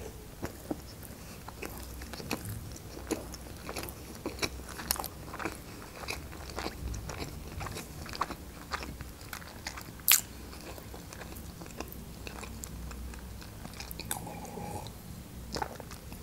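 Chewing a mouthful of sushi roll: a run of soft, wet mouth clicks and smacks, with one sharper click about ten seconds in.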